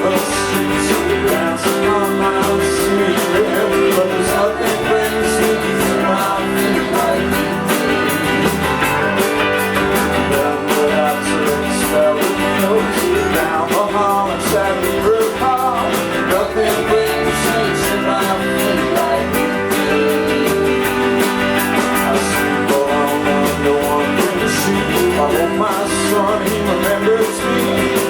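Live rock band playing a song: guitars and singing over a steady drum beat.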